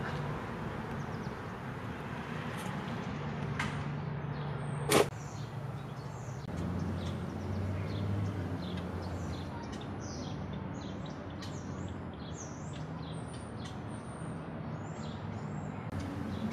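Small birds chirping over and over over a low steady hum, with one sharp click about five seconds in.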